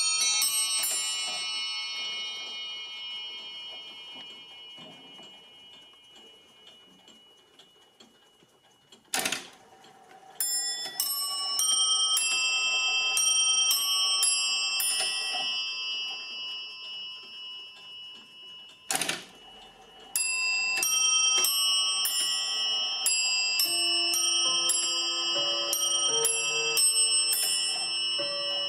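English chiming clock playing its eight-bell chime: runs of quick bell strikes, each run left to ring and fade, with new runs starting about ten seconds in and again about twenty seconds in. A sharp click sounds twice in the pauses, and deeper notes join over the last few seconds.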